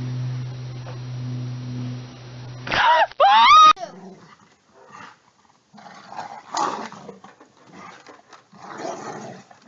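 A steady low hum stops about three seconds in, when a dog gives two loud, high whining yelps that swoop up and down in pitch. Softer scattered noises follow.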